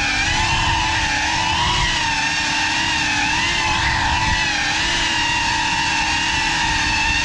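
GEPRC FPV quadcopter's motors and propellers whining steadily in fast flight, the pitch wavering slightly up and down with throttle.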